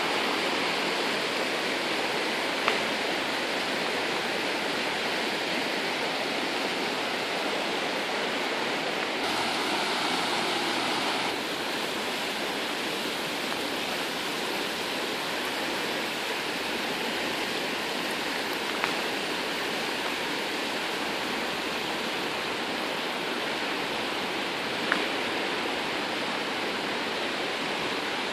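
Flowing water rushing steadily, with three brief faint clicks.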